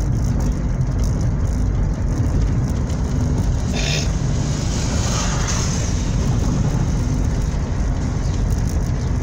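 Steady low road and engine rumble heard inside a moving car, with a short hiss about four seconds in.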